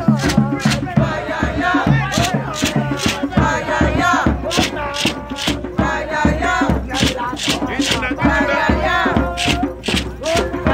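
Mardi Gras Indian street chant: a group of voices chanting and singing over a steady beat of hand drums and a beaded gourd shaker, about two hits a second.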